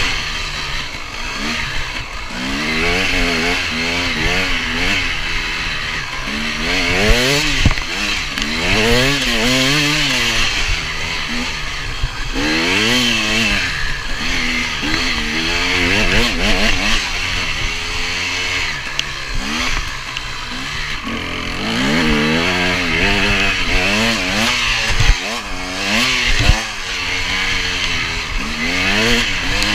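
KTM 250 EXC two-stroke enduro motorcycle engine heard from on board, revving up and falling back over and over as the throttle is opened and closed, with a few sharp knocks about a third of the way in and twice near the end.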